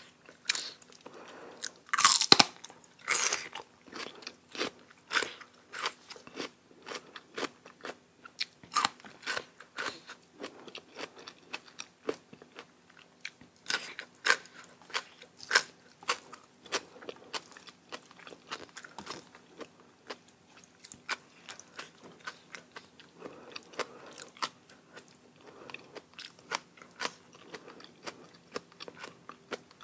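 A person biting and chewing crisp food, with many sharp crunches at an irregular pace; the loudest bites come about two and three seconds in.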